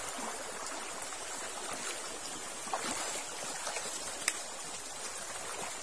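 Steady rush of river water flowing over rocks, with one sharp click about four seconds in.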